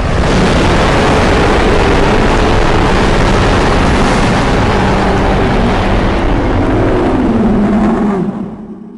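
Custom monster-roar sound effect: a loud, rough, noisy roar with a wavering low growl in it, starting suddenly, holding for about eight seconds and fading out near the end.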